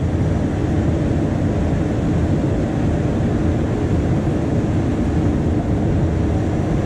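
Powered-up streetcar's onboard machinery, heard from the pit beneath the car, running with a loud, steady low rumble and hiss.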